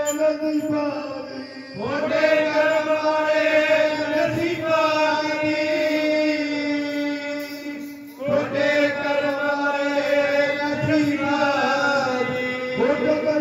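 Male voices chanting a Sikh devotional shabad in long, held phrases that slide between notes over a steady low drone, with a new phrase starting about two seconds in and again about eight seconds in.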